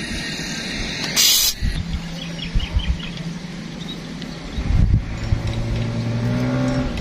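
Road traffic: vehicle engines humming steadily, with a short sharp hiss about a second in and low thumps near the middle.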